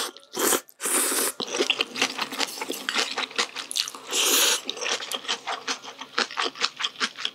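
A person slurps spicy cold naengmyeon noodles: two long slurps near the start and another about four seconds in. Between and after them come wet chewing and quick mouth clicks.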